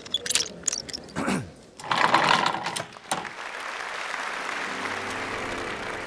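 Cartoon sound effects for an animated intro: a few quick clicks, a falling glide, and a short loud burst about two seconds in. From about three seconds on comes a steady mechanical whirr.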